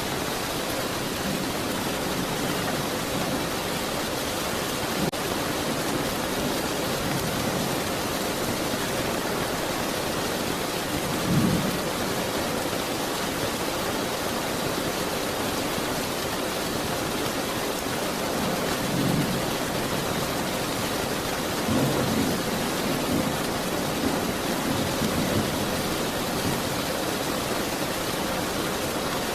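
Steady, heavy rainfall with a few short, low rumbles of thunder at intervals.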